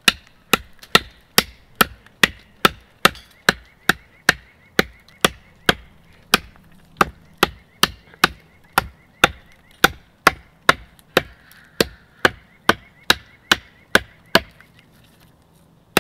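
KA-BAR USMC fighting knife chopping into a vine laid across a wooden stump: a steady run of sharp blade strikes on wood, just over two a second, stopping near the end.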